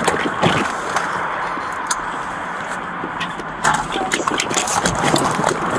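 Police car on the move: steady road and engine noise, with scattered knocks and rustles.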